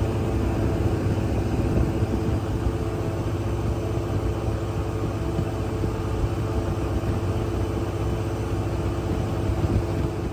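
An engine running steadily under way, its low drone held at one pitch beneath a loud rushing noise.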